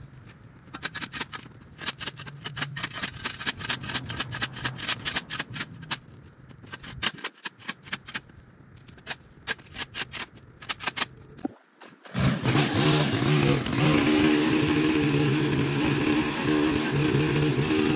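A run of rapid scraping and clicking strokes over a faint low engine hum. About twelve seconds in, a petrol engine comes up loud and runs steadily.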